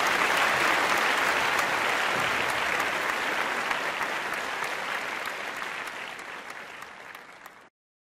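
Audience applauding, many hands clapping at once. The clapping fades gradually and cuts off abruptly near the end.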